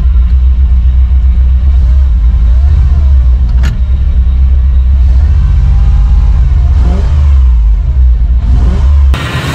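1994 Chevy 3500 HD tow truck's big-block V8 running with a loud, deep rumble, heard from inside the cab. A single sharp click comes about three and a half seconds in, and the engine sound drops away suddenly just before the end.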